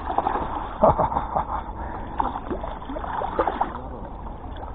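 Water splashing and sloshing irregularly as a hooked fish thrashes while being drawn in to the bank.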